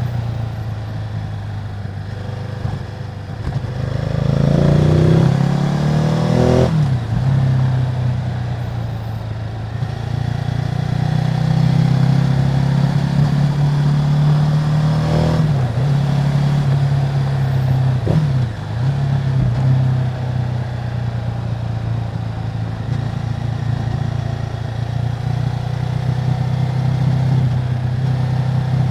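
Ducati Multistrada 950's twin-cylinder engine running through its stock exhaust. Its pitch rises under throttle from about 4 s, drops sharply just before 7 s, and drops sharply again near 15 s before holding steady.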